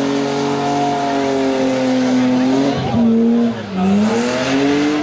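Rally car engine revving hard under load, its pitch sagging slowly, then dipping sharply twice, about three and three and a half seconds in, before climbing again, with tyre squeal as the car slides through the bend.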